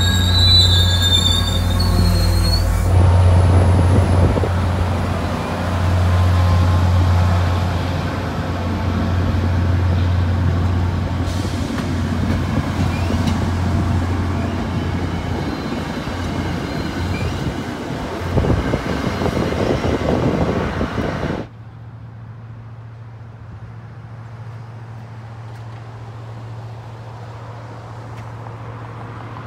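MBTA commuter rail coaches rolling past close by, wheels running over the rail joints under a steady low drone, with a brief high wheel squeal at the start. About two-thirds of the way through the sound drops off sharply, leaving only a faint low hum.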